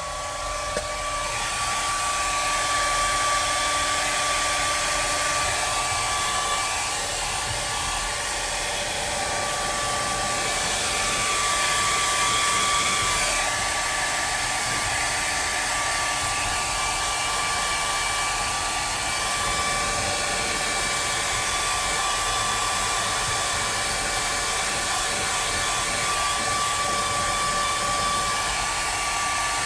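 Hair dryer blowing steadily, its motor whining on one steady high note, drying a freshly sprayed coat of leather dye.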